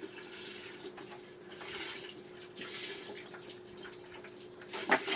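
Pot of soup heating on the stove, giving off a steady watery hiss over a steady hum, with a short louder sound near the end.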